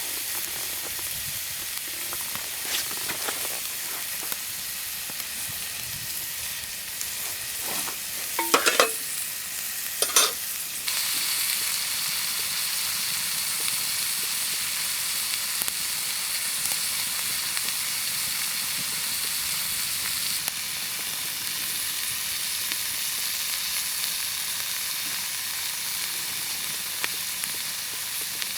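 Meat sizzling steadily on a hot cooking surface over a campfire. A few sharp metallic clicks and scrapes come about eight to ten seconds in, and the sizzle grows louder just after them.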